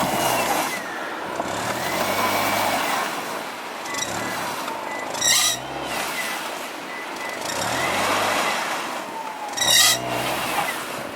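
Front-wheel-drive car's engine revving up and falling back again and again, about every two seconds, with a rising and falling whine as its wheels spin in deep snow: the car is stuck. Two short, louder bursts of noise come about five and ten seconds in.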